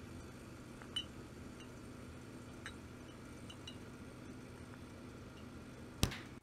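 Glass beer bottles clinking lightly a few times as they are gathered from a refrigerator, over a steady low hum. A single sharp knock near the end is the loudest sound.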